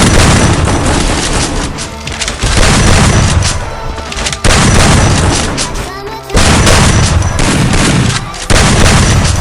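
Video game gunfire and booms over background music, coming in loud surges that start sharply about every two seconds and fade.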